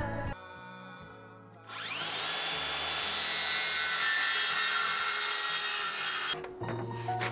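Cordless circular saw whining up to speed and cutting through a sheet of plywood, then cutting off suddenly near the end, over background music.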